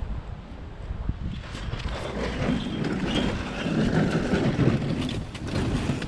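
Blue masking tape being peeled off a freshly primed sheet-metal bus panel: a crackling rip full of small clicks that builds about a second and a half in and runs for several seconds, over a low rumble of wind on the microphone.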